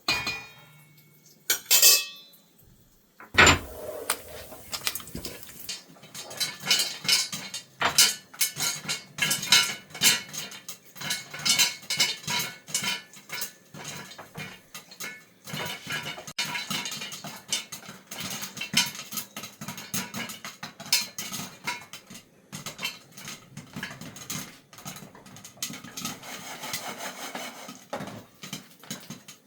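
Popcorn kernels popping in hot oil in a pot: a dense, irregular crackle of many quick pops against the metal. It follows a couple of sharp metal clanks in the first few seconds.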